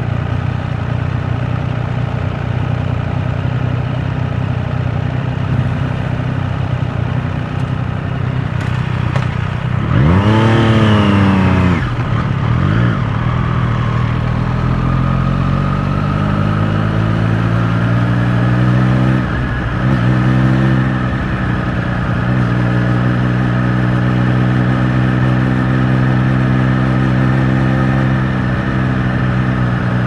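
Triumph Street Triple 765 RS inline three-cylinder engine running at low speed in traffic. About a third of the way in it revs sharply up and back down. It then pulls away with its pitch climbing slowly, dips briefly twice at gear changes, and settles into a steady cruise.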